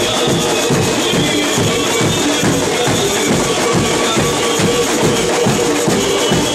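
A marching carnival drum section plays: many shoulder-slung drums beaten with sticks and hands, with shakers or jingles on top, in a fast, steady, driving rhythm.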